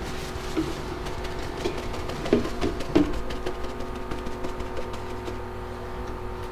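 Light scattered knocks and cloth rubbing as a shop towel wipes out the cylinder bores of a bare engine block, over a steady workshop hum.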